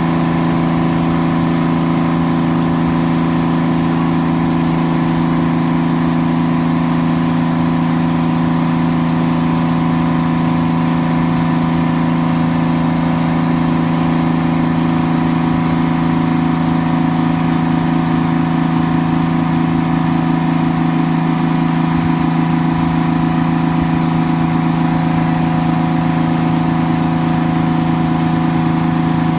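1974 Grove TMS300 truck crane's engine running at a steady, even speed with no revving while the operator works the crane.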